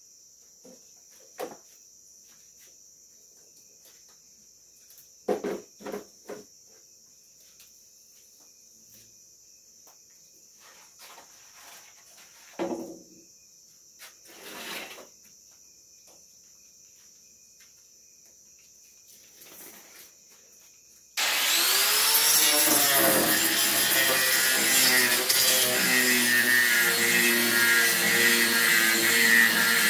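A few short clunks as the angle grinder and its discs are handled on the wooden slab. About two-thirds of the way through, the angle grinder switches on, whines up to speed and runs loud and steady, abrading the wood.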